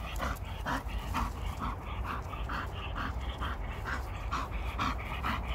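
English bull terrier panting quickly and rhythmically, about four breaths a second, over a low steady rumble.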